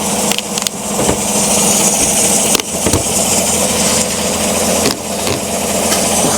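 Chevrolet Silverado's 5.3-litre V8 idling steadily, with a few short clicks. The engine is logging misfires on cylinder 6.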